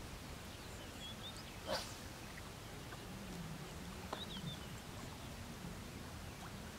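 Open-air ambience with a low wind rumble, a few short high bird chirps, and a low wavering animal call through the second half. A brief swish comes just under two seconds in.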